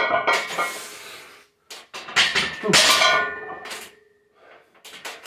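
Iron weight plates and a steel barbell clanking against each other and the steel power rack during a squat set. A series of sharp metallic clanks that ring on after each hit, loudest at the start and around two to three seconds in, with lighter clinks near the end.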